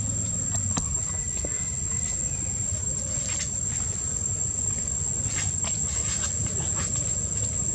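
Insects droning on one steady high note over a continuous low rumble, with a few brief clicks and rustles scattered through, most of them in the second half.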